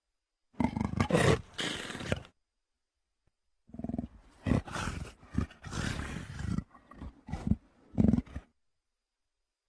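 Dinosaur creature sound effects for Dromaeosaurus: one call lasting under two seconds, then after a pause a quick run of short calls, the last one loudest.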